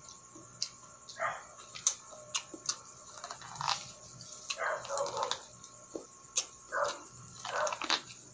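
Close mouth sounds of biting kernels off a cob of sweet corn and chewing them: irregular sharp clicks and crunches with wet chewing between.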